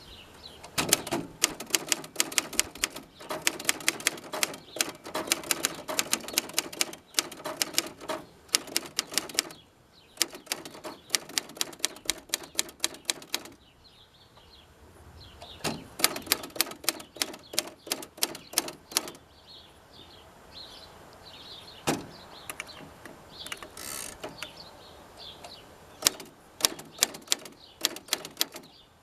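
1963 Royal Empress manual typewriter being typed on: quick runs of sharp key and typebar strikes, several a second, broken by short pauses.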